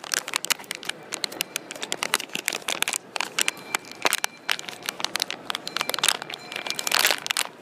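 Foil blind-box pouch crinkling and crackling as hands tear it open and pull the vinyl figure out, in quick irregular crackles with a louder burst near the end.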